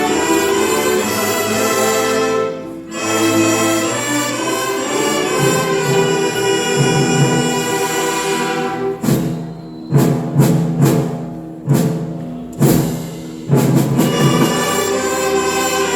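Live orchestra playing sustained full chords with brass and strings. From a little past halfway it breaks into a series of loud, accented hits with timpani, about six strikes roughly a second apart.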